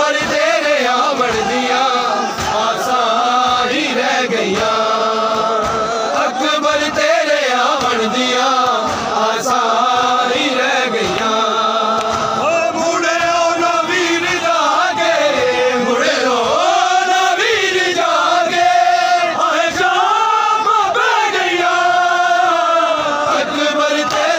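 Men's voices chanting a Punjabi noha, a Shia mourning lament.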